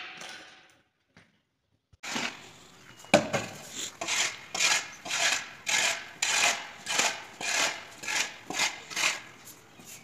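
Steel shovel scraping and turning a sand-and-cement mix on a concrete floor, about two scrapes a second, starting after two seconds of near silence. A sharp knock comes about three seconds in.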